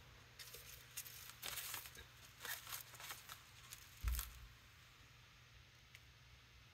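Faint crackling and rustling of dry twigs and grass stems being handled and laid on a paint-covered gel plate, with a soft thump about four seconds in.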